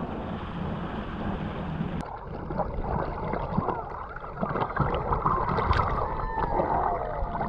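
For the first two seconds, the steady run of a moving outrigger boat: engine and rushing water. Then, after a cut, water sloshing and gurgling against a camera held at the sea surface, full of small clicks, with a few whistle-like gliding tones from about five seconds on, one falling slowly near the end.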